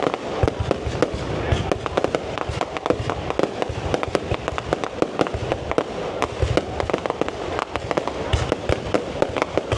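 Aerial fireworks barrage: a rapid, irregular run of sharp cracks and bangs, several a second, over a continuous rumble of bursting shells.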